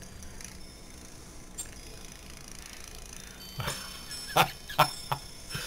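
A bulldog making four short, sharp vocal sounds in quick succession, starting about three and a half seconds in after a quiet stretch.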